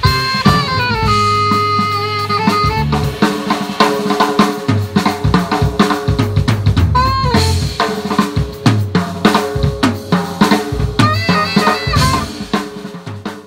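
Live band playing an instrumental piece: saxophone leading with held and sliding notes over electric guitar, electric bass and a drum kit keeping a steady beat. The music breaks off abruptly at the very end.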